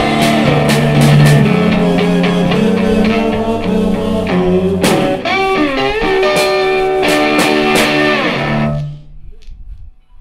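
One-man band playing a funky slide tune: electric slide guitar with pitches gliding between notes, over a stomped bass-drum beat. The music stops about nine seconds in and the last notes die away.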